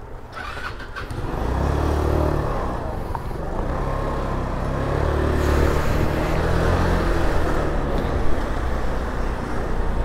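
Motor scooter pulling away and riding in street traffic: engine running with road noise, getting louder about a second in as it sets off and then holding steady.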